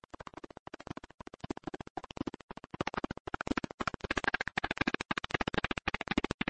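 Rapid, irregular clicking and crackling that grows steadily louder.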